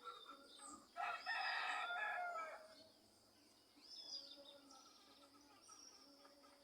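A rooster crows once, starting about a second in and lasting about a second and a half, its pitch dropping at the end. Small birds chirp faintly around it.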